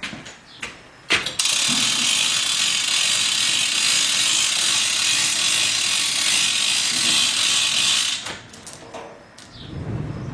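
Manual chain fall hoists being hauled to lift a body tub: the chain rattles through the hoist and the pawl clicks. There are a few separate clicks, then a steady run of dense rattling for about seven seconds that stops suddenly, then a few quieter clicks.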